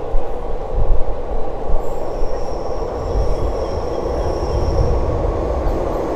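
Thai diesel passenger train approaching the platform: a low rumble, with a thin, steady high squeal from about two seconds in until about five seconds in.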